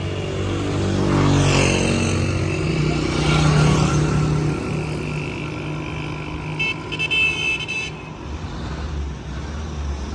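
Road traffic: a motor vehicle's engine running as it passes, loudest in the first few seconds, with a short stuttering horn honk about seven seconds in.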